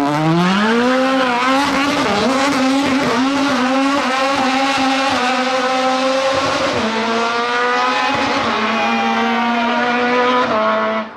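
Rally car engine at high revs: the revs climb back up near the start, then hold high and nearly steady with brief small drops, before the sound fades out at the end.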